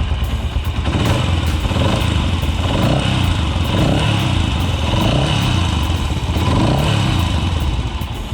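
Yamaha YBR125's 125 cc single-cylinder four-stroke engine running, its revs rising and falling about five times as the throttle is blipped. With a new cam chain tensioner fitted and the tappets adjusted, the timing chain's rattle is gone.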